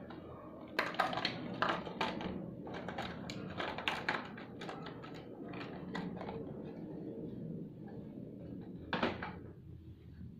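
Small hard objects clicking and knocking against each other as they are handled and set down: a quick run of clicks in the first few seconds and one more knock near the end.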